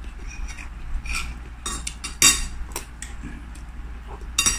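A metal spoon clinking against a plate and bowl during a meal: several short, scattered clinks, the loudest a little over two seconds in and a few more near the end.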